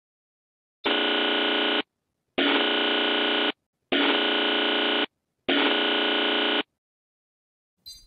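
A harsh electronic buzzer tone sounding four times, each blast about a second long with short gaps between, followed by a brief blip near the end.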